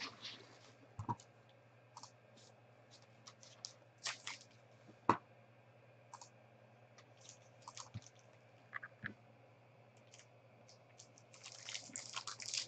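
Foil trading-card packs being handled: scattered faint crinkles and clicks, with one sharper click about five seconds in and a louder run of foil crinkling near the end as a pack is worked open.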